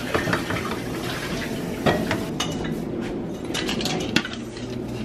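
A spoon stirring simmering red beans in a skillet: a wet scraping clatter with scattered knocks against the pan, two of them sharper, about two and four seconds in.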